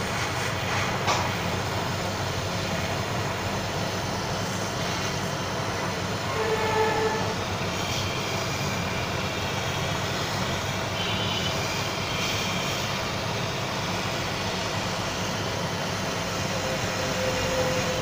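Hot air gun running steadily, its fan blowing a constant rush of air, heating a phone's back panel to soften the adhesive underneath.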